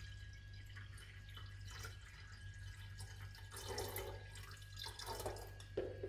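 The last of the water dribbling and dripping from a plastic measuring jug into an electric kettle: a few faint, scattered splashes and drips.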